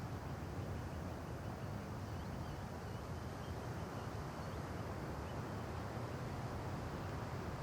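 Wind blowing through trees, a steady rustle of leaves over a low rumble, with a few faint bird chirps.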